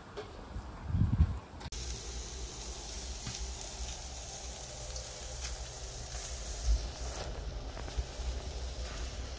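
Picaña steaks sizzling on a grill over wood embers: a steady hiss with faint scattered crackles over a low rumble. A low thump about a second in.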